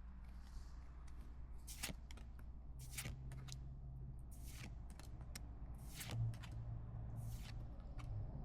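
Pokémon trading cards and foil booster pack wrappers being handled, giving several short, crisp crinkles and rustles.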